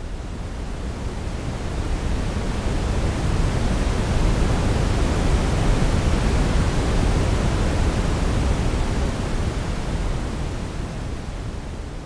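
Simulated ocean-wave sound made from shaped noise: a smooth rush that swells over the first few seconds, peaks in the middle and ebbs away toward the end, like one wave washing in and out.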